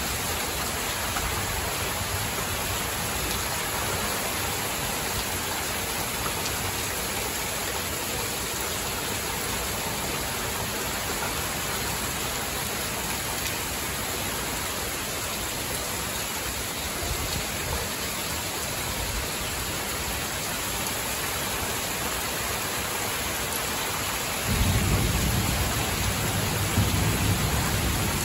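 Heavy thunderstorm rain pouring down steadily, with water running off the porch roof. About three-quarters of the way through, a louder low rumble sets in and holds.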